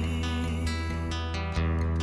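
Background music: an instrumental passage between sung lines of a Vietnamese ballad, with plucked guitar over a steady bass. The chord changes about one and a half seconds in.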